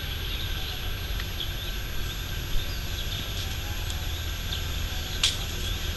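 Tropical forest ambience: a steady high-pitched buzz of insects over a low rumble, with one sharp click about five seconds in.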